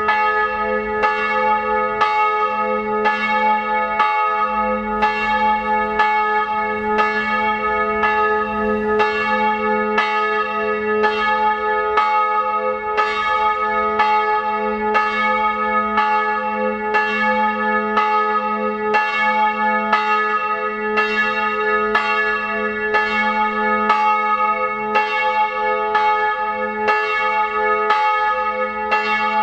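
A single bronze church bell, strike note A-flat, cast in 2006 by Rudolf Perner of Passau, swinging and ringing the evening ringing. It strikes evenly at about one stroke a second, its tone sounding on between strokes.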